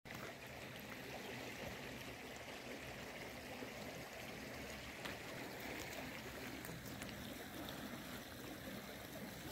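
Steady rush of a nearby stream running over stones.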